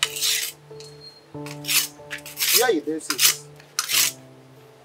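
Background music with held low notes. Over it, something is scraped or rubbed in four short, coarse strokes, each under half a second.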